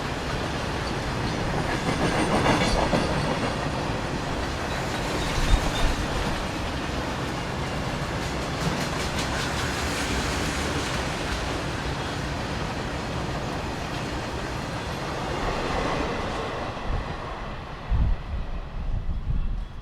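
A goods train's flatbed wagons rolling past, wheels clattering over the rail joints in a steady run that thins out near the end, with a few low thumps at the close.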